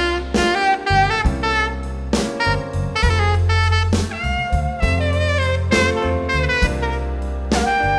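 Tenor saxophone playing a slow, lyrical jazz solo melody with vibrato, backed by bass and drums.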